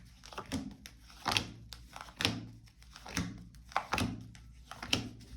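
Tarot cards handled on a table: a series of irregular soft knocks and slaps.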